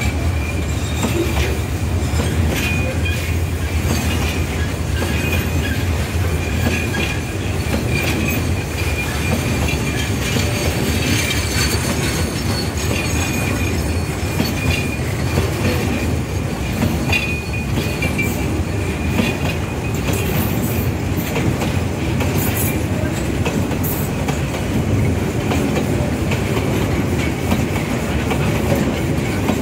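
Freight train of oil tank wagons rolling past close by: a steady rumble of wheels on rail, clacks as the wheels cross rail joints, and an on-and-off high-pitched wheel squeal.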